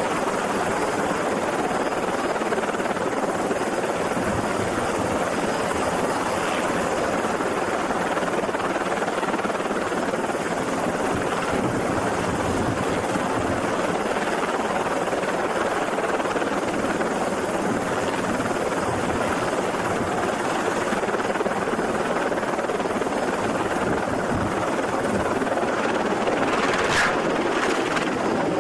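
Helicopter running on a ship's helideck: a steady, loud rotor and engine noise that holds level throughout, with a short higher-pitched sound near the end.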